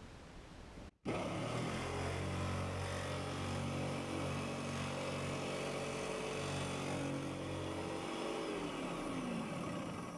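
Electric jigsaw running steadily as it cuts through the boat's bulkhead, starting about a second in; near the end its motor is released and winds down, the pitch falling as it stops.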